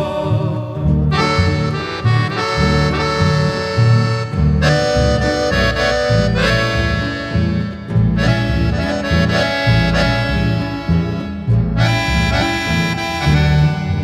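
Accordion playing the melody in an instrumental passage of a folk song, its notes held and changing about every second, over a guitar and bass accompaniment with a steady rhythmic bass line.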